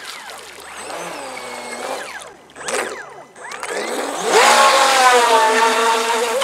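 Brushless electric motor of a Fei Lin FT012 RC racing boat whining, its pitch rising and falling with the throttle, then climbing about four seconds in to a loud, steady high whine at full throttle.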